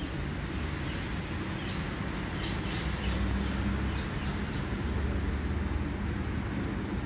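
Outdoor city ambience: a steady low rumble of background traffic, with a few faint, high bird chirps about two to three seconds in.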